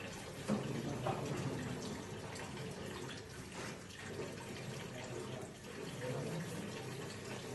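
Tap water running into a sink during hand dishwashing, with a few light knocks of dishware.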